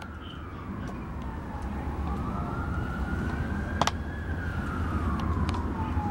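Distant police siren wailing, its pitch falling, then rising slowly, then falling again, over a steady low rumble. A single sharp click comes about two-thirds of the way through.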